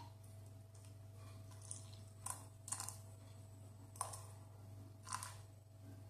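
Frothed milk being poured from a stainless steel jug into a cup of espresso: faint, with a handful of short clicks and taps over a low steady hum.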